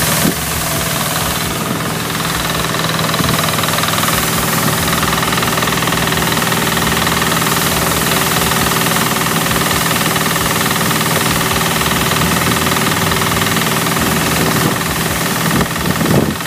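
Pasquali two-wheel tractor engine running steadily under load, driving a small stationary threshing machine through a PTO shaft as sheaves of wheat are fed through it.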